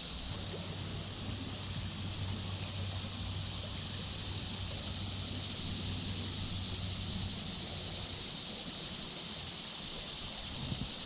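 Steady creekside ambience: a continuous high-pitched insect chorus over the flow of shallow creek water.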